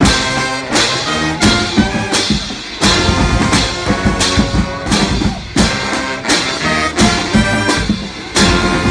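Brass marching band playing, horns over loud drum hits on a steady beat.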